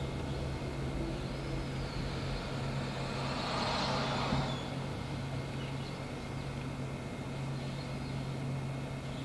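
SEPTA PCC streetcar running on street track, heard from on board: a steady low hum and rumble, with a hiss that swells and fades about three to four seconds in.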